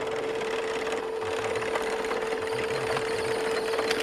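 Small electric motor of a radio-controlled Bruder Massey Ferguson toy tractor whining at a steady pitch as it drives, with its tyres crunching over gravel.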